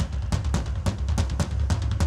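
Live band music driven by a drum kit playing a fast, steady beat of kick and snare strokes over a heavy bass.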